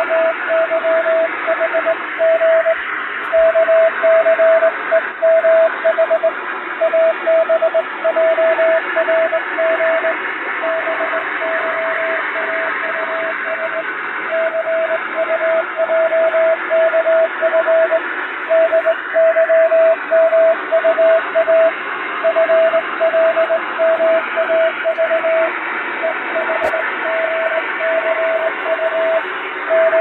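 Morse code hand-sent on a straight key: a single steady beep tone keyed on and off in dots and dashes, spelling five-letter code groups, over a constant hiss of added static with fading like a shortwave radio signal.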